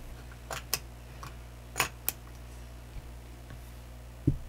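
Casino chips clicking against each other a few times as they are picked up and handled, followed by a dull thump near the end.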